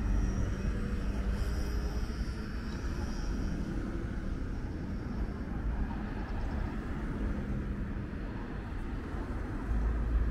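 Steady low rumble of city street traffic, with no single distinct event standing out.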